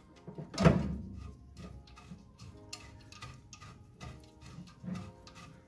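A nut being spun onto a bolt by hand on the steel pedal box of a 1977 MGB: one sharp metal knock about half a second in, then a run of small metallic clicks and ticks.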